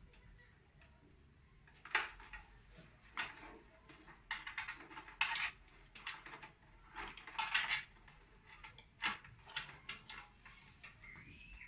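Irregular clicking, rattling and scraping of SATA data cables and their plastic connectors being handled and pushed into place inside a desktop PC case, starting about two seconds in.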